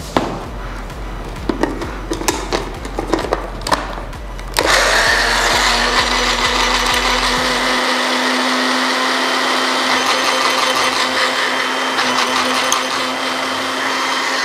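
Clicks and knocks of a small electric blender's jar being handled. About four and a half seconds in, the blender motor starts and runs steadily with a hum, blending chopped pandan leaves in a little water.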